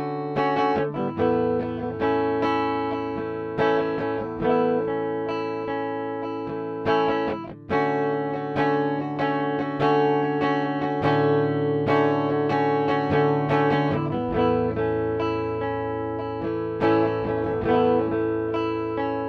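Schecter C1 Elite electric guitar played with a clean, dry tone and no effects: picked chords left ringing, a new chord every second or two.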